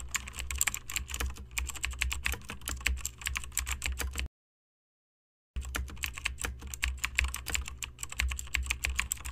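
Rapid typing on a computer keyboard, dense quick key clicks over a low steady hum. The typing breaks off into complete silence about four seconds in and resumes after a little over a second.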